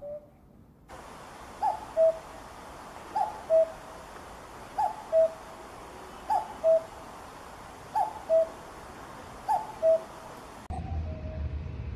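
Common cuckoo calling its two-note "cuck-oo", the second note lower than the first, repeated evenly about every one and a half seconds. Near the end the background changes to a low rumble as another recording cuts in.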